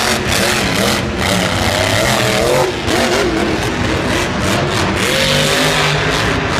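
Monster truck's supercharged V8 engine revving hard, the revs rising and falling repeatedly as it drives a freestyle run.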